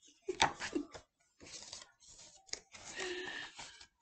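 Paper pages and flaps of a picture book rustling and clicking in a few short bursts as the book is handled.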